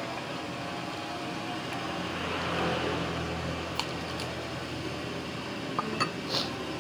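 Steady background hum that swells and fades over a couple of seconds in the middle, with a few light clinks of a metal fork against a ceramic bowl.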